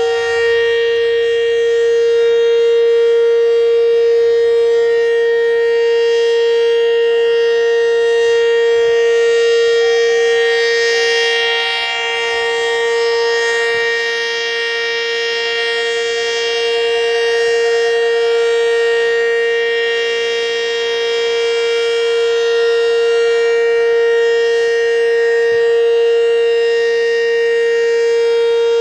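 ACA Banshee 115 omnidirectional outdoor warning siren sounding the Alert signal: one loud, steady tone held at a constant pitch, its loudness wavering only slightly.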